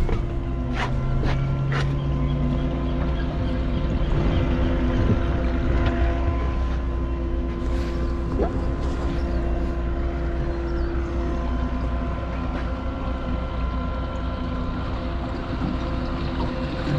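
Mercury 200 hp outboard motor running steadily as the boat gets under way, with a few knocks in the first two seconds.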